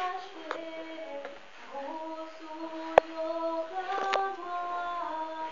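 A female voice singing a slow melody, holding each note before stepping to the next. A sharp knock cuts across it about three seconds in, with fainter clicks before and after.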